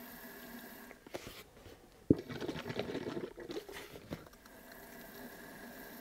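Toilet bowl cleaner pouring from an upside-down plastic bottle into a steel fuel tank through its filler neck. A sharp knock about two seconds in is followed by about two seconds of irregular gurgling.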